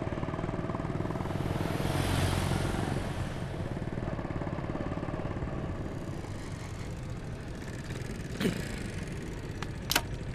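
A motor vehicle engine running steadily, swelling as it passes about two seconds in. A short falling sound and a couple of sharp clicks come near the end.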